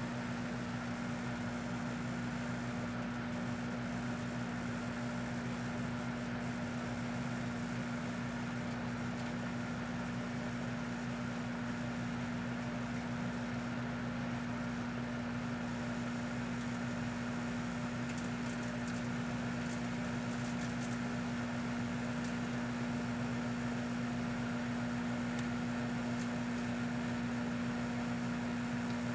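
Proctor-Silex microwave oven running with a steady hum. About two-thirds of the way through there are a few faint crackles of arcing from the metal screws cooking inside.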